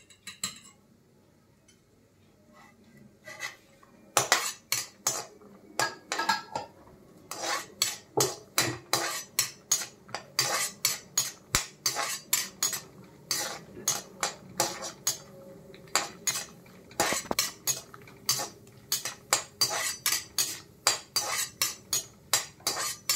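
A steel spatula scraping and clinking against a metal kadai, stirring cashews frying in ghee. The strokes start about four seconds in and repeat at about two a second.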